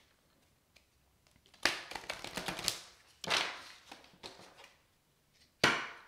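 A deck of reading cards being shuffled and handled by hand: three brief swishes, about a second and a half to two seconds apart, with faint ticks of cards in between.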